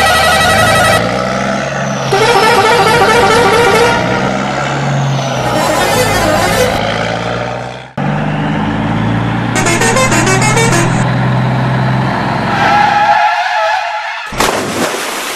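Dubbed truck sound effects: a truck engine running with several blasts of a truck horn. The sound cuts off abruptly about eight seconds in and starts again, and near the end there is a short noisy splash.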